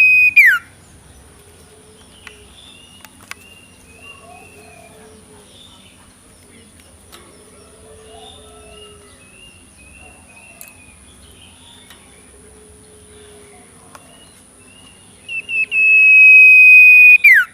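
Young bird giving a loud whistled call twice: a few short chirps, then a clear note held about a second before sliding steeply down. Between the two calls there are only faint soft calls.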